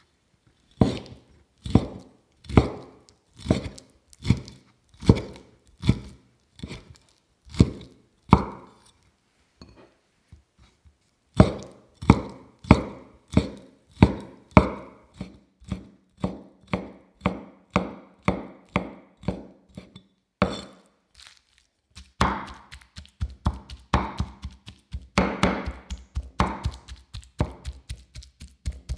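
Cleaver chopping raw shrimp on a thick wooden chopping board: single chops about one to two a second, with a short pause about a third of the way in. In the last quarter the chopping turns fast and rapid as the shrimp are minced to a paste.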